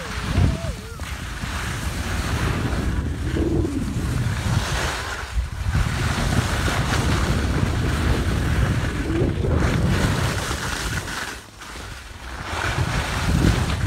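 Wind rushing over a phone's microphone and skis scraping and hissing over mogul-covered snow during a downhill ski run. A steady rushing noise that drops briefly near the end.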